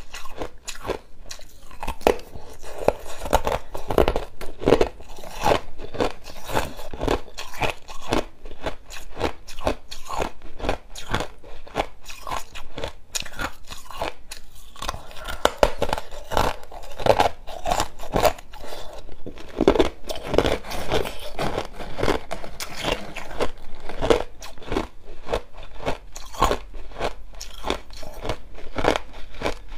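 A person biting and chewing clear ice cubes: a continuous run of sharp, crisp crunches and cracks, with a brief pause about halfway through.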